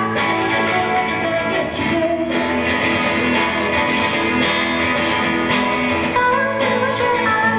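Live song with strummed guitars carrying an instrumental stretch, and a woman's singing voice coming back in about six seconds in.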